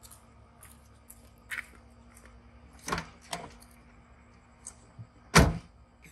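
Suzuki Mehran car door: a few light clicks as the driver's door is opened and he gets in, then the door shut with one loud thud near the end.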